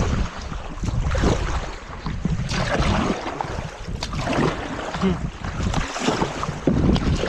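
Wind rumbling on the microphone, with paddles splashing in the water as a two-person kayak is paddled.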